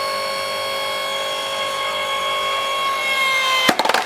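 5-ton log splitter's motor and hydraulic pump running with a steady whine, its pitch sagging slightly as it works against a log. Near the end, a quick run of sharp cracks.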